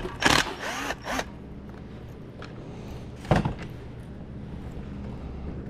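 Milwaukee cordless drill/driver whirring in two short bursts as it backs Torx screws out of a plastic starter cover, then a single clunk about three seconds in, over a steady low hum.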